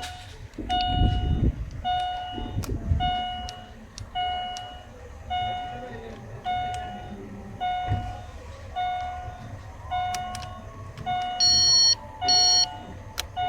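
Car alarm sounding in a steady run of same-pitched beeps, about one a second. Two sharper, higher beeps come in near the end.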